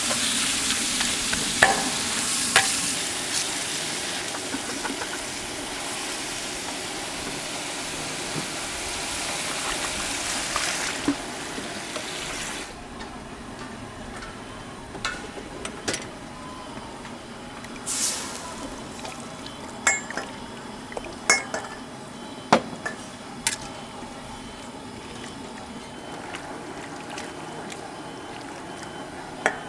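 Sliced meat sizzling in oil in a large steel wok, stirred and scraped with a metal ladle that clanks now and then. About halfway through, the sizzle cuts off suddenly as liquid goes into the wok, and after that only the ladle's scattered clinks and stirring in the liquid are heard.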